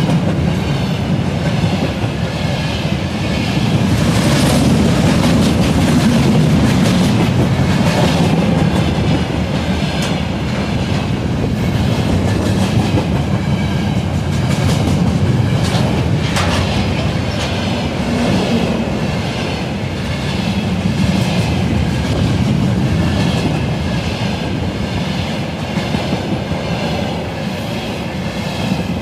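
Freight train behind a VL10 electric locomotive passing close by, its wagon wheels clattering steadily over the rail joints.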